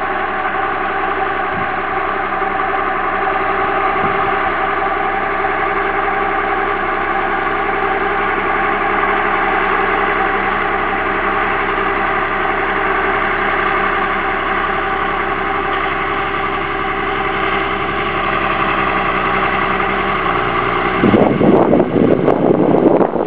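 Fiatagri 160-90 DT tractor's six-cylinder turbo diesel running at steady revs while it pulls an implement through the field. About two seconds before the end, gusty wind buffeting on the microphone takes over.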